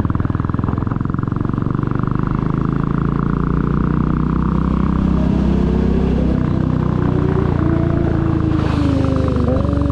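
2022 Royal Enfield Classic 350's single-cylinder engine running steadily while riding, with an even rapid beat of firing pulses, building slightly partway through. From about halfway in, wavering tones rise and fall above the engine.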